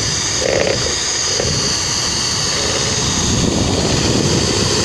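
Electric mixer running steadily at speed, beating egg whites to stiff peaks: a steady high whine over a whirring rush.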